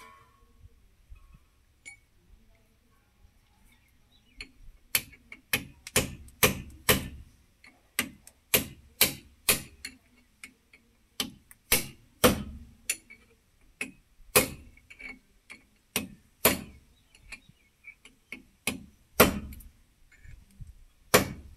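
Hammer striking steel: a run of sharp metallic blows, about two a second, beginning about five seconds in and going on in groups with short pauses, as on the front wheel hub and bearing parts of a tractor.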